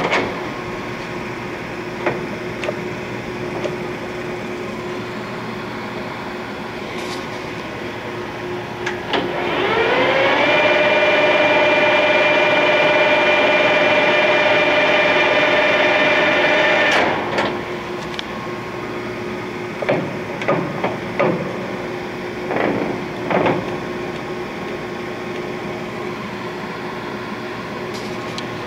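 1968 Clausing Colchester 8050 geared-head lathe running with a steady hum. About nine seconds in, a whine rises and holds for about seven seconds as the spindle spins up, then it drops away. A few sharp knocks follow.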